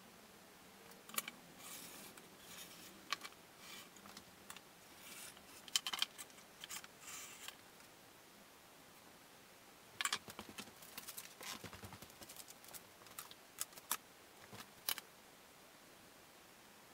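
Light clicks, taps and rustles of small hand tools and paper being handled on a workbench, in two spells of a few seconds each.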